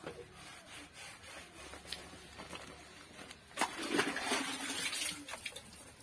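A wet cloth rubbing over a motorcycle, with small scuffs and clicks. About three and a half seconds in comes a burst of splashing as the cloth is dunked and swished in a bucket of water, lasting a little over a second.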